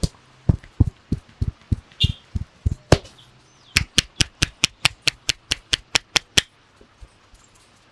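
Hands striking the head in a percussive barber's massage. First comes a run of dull thumps, about three a second, then from about four seconds in a faster run of sharp claps, about five a second, that stops after about two and a half seconds.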